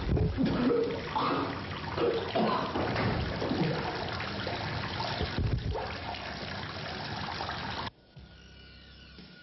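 Tap water running into a washbasin, with a person's short vocal sounds over the first few seconds; the sound cuts off abruptly about eight seconds in.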